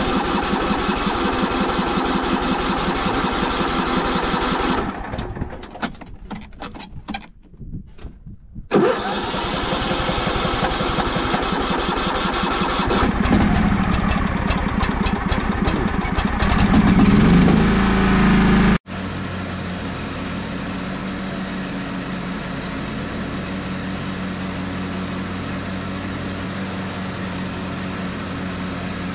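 Small John Deere tractor's engine on its first start of the season after a winter with the battery out: it fires and runs, sputters and nearly dies for a few seconds, then catches again and revs up. After an abrupt break it runs steadily.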